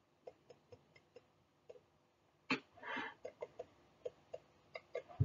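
Faint clicks and taps of a stylus on a drawing tablet during handwriting, a few a second, with one louder tap about two and a half seconds in and a short breathy noise just after it.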